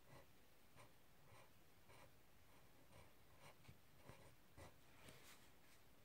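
Faint scratching of a pen on paper as letters are handwritten: a string of short strokes, roughly two a second, with a slightly longer stroke about five seconds in.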